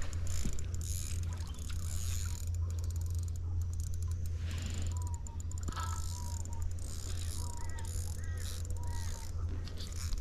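Spinning reel being cranked steadily as line is wound in: a continuous low whir from the gears with fine, rapid clicking.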